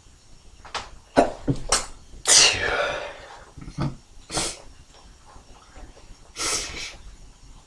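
A run of sneezes, several in quick succession. The loudest and longest, about two seconds in, falls in pitch, and two more single sneezes follow a few seconds later.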